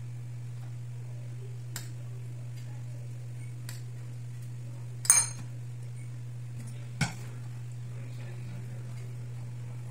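Cutlery and hands clinking and tapping on a ceramic plate while a wrap is filled: a few light taps, a loud ringing clink about five seconds in and a sharper knock about two seconds later, over a steady low hum.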